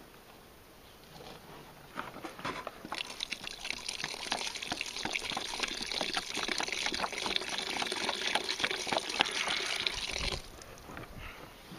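Water poured in a steady splashing stream into a plastic bucket of soaking sphagnum moss; it builds up about two seconds in and stops abruptly near the end.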